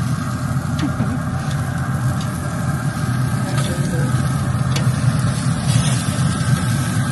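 Pellet smoker's fan running with a steady low motor hum, and a few light clicks over it.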